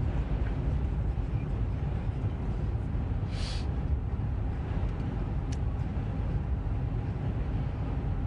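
Steady low rumble of a car's tyres, engine and wind, heard inside the cabin while driving. A brief hiss comes about three and a half seconds in, and a faint click a couple of seconds later.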